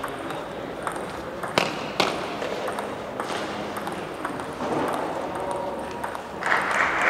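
Table tennis ball clicking off the rubber bats and the table during a rally, sharp irregular hits with a short ring in the hall. Near the end a burst of crowd noise rises as the point ends.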